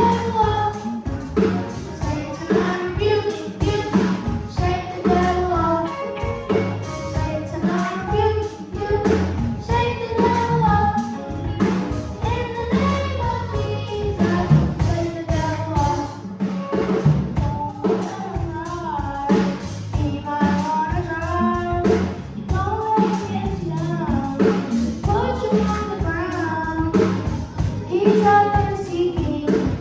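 Children's choir singing a gospel song with drum kit accompaniment.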